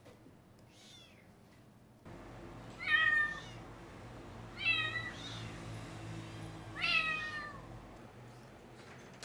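Kitten meowing: a faint call about a second in, then three louder meows roughly two seconds apart, each falling in pitch.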